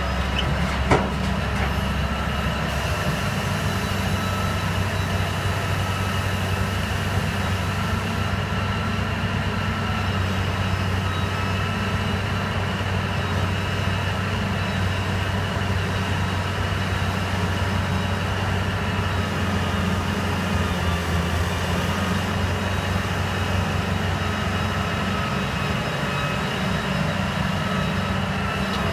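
Heavy diesel engines of a Liebherr 984 shovel excavator and a Terex TR100 haul truck running steadily while the excavator digs, swings and loads. A single sharp knock sounds about a second in, as the bucket's load drops into the truck bed.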